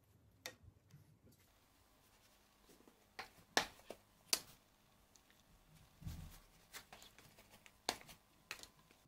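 Quiet handling of soft bread dough, with a handful of sharp clicks and taps from a plastic bench scraper against the countertop as it cuts and lifts the dough. There is also a soft low thump about six seconds in.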